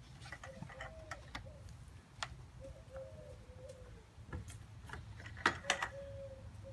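A bird calling in short, low, repeated phrases, with a few sharp clicks or knocks, the loudest about five and a half seconds in, over a low steady rumble.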